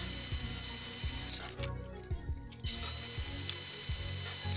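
A polishing pad held by hand against an aluminium cube spinning in a mini lathe: a steady, high hissing rasp in two stretches of about two seconds each, with a short break in the middle. Background music with a steady beat plays underneath.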